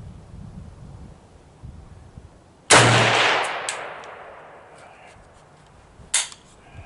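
A single rifle shot from a Zastava M70 ZPAP AK-pattern rifle in 7.62x39mm about three seconds in, with a long echoing tail. A shorter, sharp crack follows about three seconds later.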